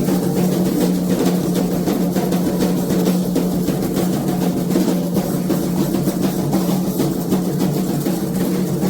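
Candomblé atabaque drums playing a fast, continuous rhythm of dense, closely spaced strokes.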